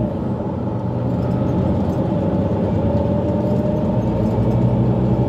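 Mercedes-Benz Citaro G articulated bus with a Voith automatic gearbox running on the move, heard from inside the cabin: a steady diesel engine hum with a faint whine that rises slightly midway. The engine note grows a little stronger about four seconds in.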